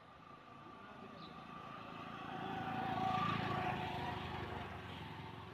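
Engine noise of something passing by, swelling to a peak about three seconds in and then fading away.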